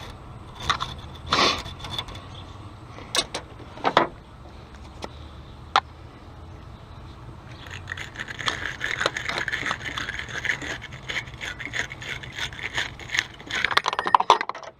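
Battery terminal cleaning tool scrubbing a car's negative battery terminal: a few scattered scrapes and knocks, then rapid, continuous scratching from about eight seconds in until just before the end.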